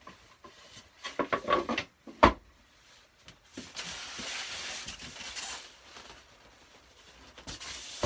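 Handling noise as a large foam shipping box is shifted across a table. There are light clicks and scuffs, one sharp knock about two seconds in, a couple of seconds of rubbing and scraping a little after the middle, and another knock near the end.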